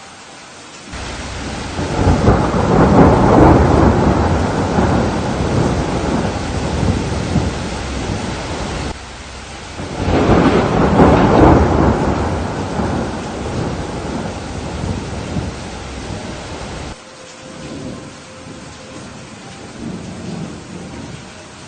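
Steady rain with two long rolls of thunder: the first swells about a second in and rumbles for several seconds, the second follows soon after. Each roll ends abruptly, leaving only the rain near the end.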